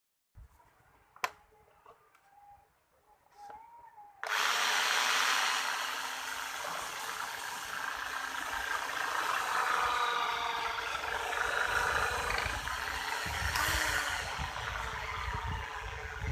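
A power tool running: after a quiet stretch with a single click, it starts suddenly about four seconds in and keeps going loudly and steadily, with faint shifting whine tones.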